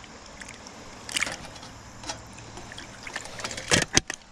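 Creek water running steadily, with scattered small clicks and rustles and two sharp knocks near the end.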